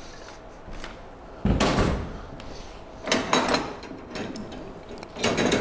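A thump about one and a half seconds in, then two more bouts of knocking and rattling, as things are handled on a table and a tool is fetched out of a bag.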